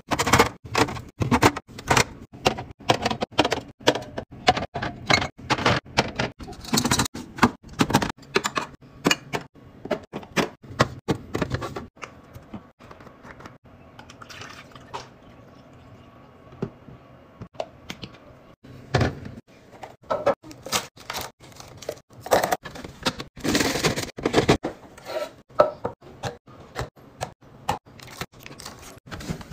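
Rapid, irregular clattering and knocking of hard objects being handled and moved about, with a few longer scraping or rustling stretches, fitting a fridge being emptied and cleaned out.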